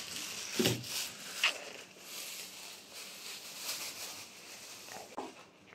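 Thin disposable plastic gloves crinkling and rustling as the hands handle a small paint bottle, a steady papery crackle that stops near the end.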